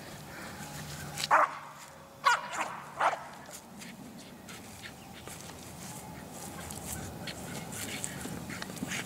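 American Eskimo dog barking: three barks about a second apart in the first few seconds, then quieter for the rest.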